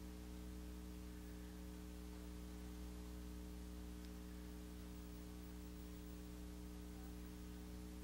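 Low, steady electrical mains hum with a faint hiss underneath: the background noise of an old lecture-hall recording, with no other sound.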